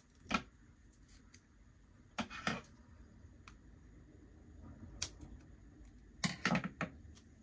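Double-sided tape being pulled from its roll and cut with scissors: a few short clusters of snips and crackles, the longest near the end.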